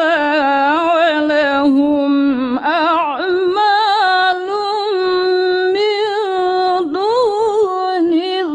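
A woman reciting the Quran in the melodic tilawah style, holding long ornamented notes whose pitch wavers and glides. There is a brief break about two and a half seconds in, then she rises to a higher held note.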